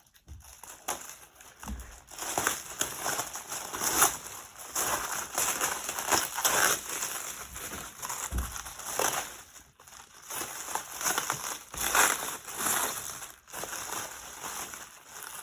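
Packaging crinkling and rustling irregularly as it is handled and pulled apart by hand, with a few sharper crackles.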